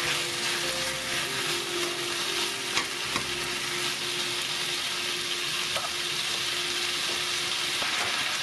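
Duck bulgogi in sauce sizzling steadily in a frying pan while metal tongs stir and turn it, with a few light clicks of the tongs against the pan.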